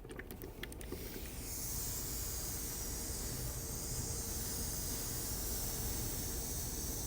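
A few light clicks, then a steady hiss that builds over the first second and a half and holds.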